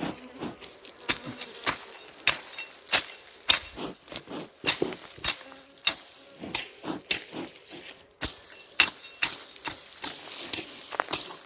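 Repeated chopping strikes in a steady rhythm, about one every 0.6 seconds, each a sharp hit with a swishing high edge: a machete cutting down grass and shrubs.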